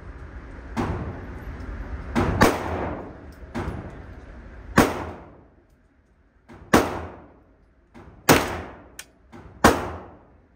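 KRISS Vector carbine fired in slow single shots, about eight in all, roughly one every second or two. Each shot rings on in the reverberant indoor range, and fainter shots sound between them.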